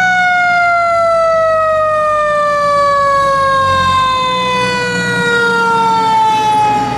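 Fire engine's mechanical siren winding down: brought up to pitch right at the start, then one long, slow falling wail. The truck's engine rumbles low beneath it.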